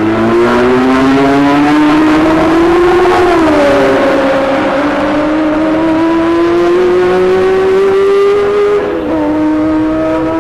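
A 1966 Formula One racing car engine accelerating hard, its pitch climbing steadily through the revs. It drops sharply at an upshift about three and a half seconds in and again near the end.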